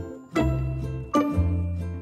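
Light background music with a bass line and a new group of notes struck about every 0.8 s.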